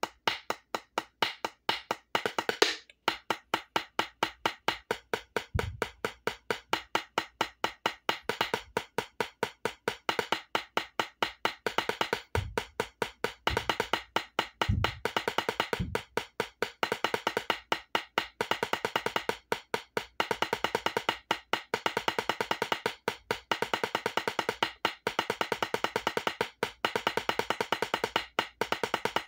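Drumsticks playing rapid, even alternating single strokes on a rubber drum practice pad, a sharp tapping in a steady stream. A few dull low thumps come in under the tapping in the first half.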